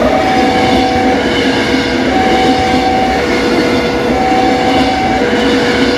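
Railway level-crossing warning alarm sounding, a higher and a lower electronic tone alternating about once a second, over the steady running of truck and motorbike engines crossing the tracks.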